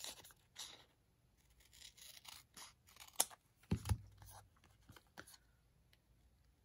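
Scissors snipping a sticker out of a paper sticker sheet in short, separate cuts, with a light knock on the tabletop near four seconds in.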